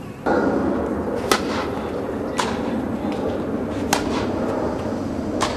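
Tennis rally: four sharp pops of the ball coming off the rackets, spaced roughly a second to a second and a half apart, over steady background noise.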